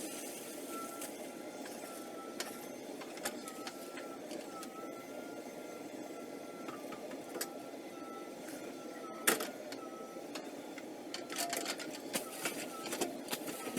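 A JCB backhoe loader's diesel engine running steadily while digging, with a thin wavering whine over it. Scattered knocks and clicks, the loudest about nine seconds in, and a flurry of them near the end.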